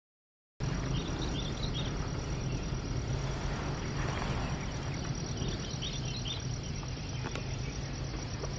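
Outdoor countryside ambience that cuts in suddenly just after the start: a steady low hum under an even hiss, with short clusters of high chirping calls about a second in and again around four seconds in.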